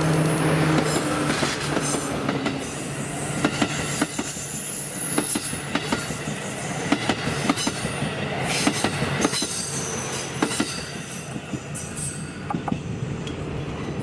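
A DD51 diesel locomotive's engine runs steadily as it passes, stopping about a second in. A train of passenger coaches follows, its wheels clacking over the rail joints with thin high squeals, fading near the end as the train moves away.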